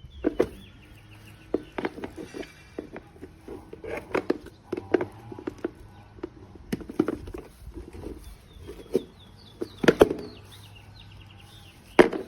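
Irregular clicks and knocks, several sharp and loud, with faint quick high chirps, like a small bird's, at the start and again near the end.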